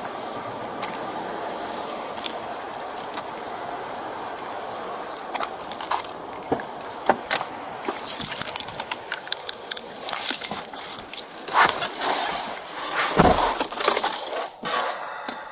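A police officer's keys and duty-belt gear jangling, with clothing rustling, as he walks and gets into a patrol car; there is a dull thump about thirteen seconds in. For the first five seconds there is only a steady background hiss, before the jangling starts.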